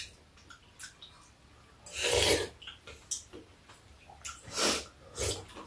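Quiet eating of soup: a few short slurps, the longest about two seconds in, and light clicks of a spoon and chopsticks against bowls.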